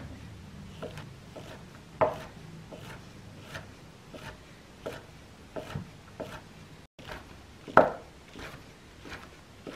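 Chef's knife chopping fish cake and then shiitake mushrooms on a wooden cutting board: irregular knocks of the blade on the board, one or two a second. The loudest knocks come about two seconds and about eight seconds in, with a brief dropout just before the mushrooms.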